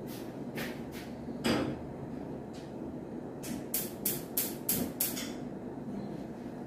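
Sharp clicks and knocks of kitchenware being handled, then a quick run of about six evenly spaced clicks.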